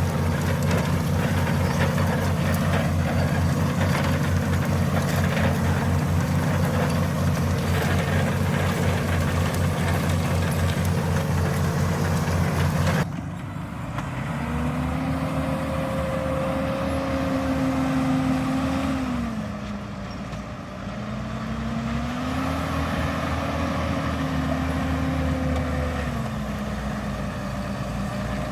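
Valtra Q Series tractor's six-cylinder diesel engine running under load while ploughing. About halfway through the sound changes abruptly to a quieter, clearer engine note whose pitch rises and falls twice as the revs change.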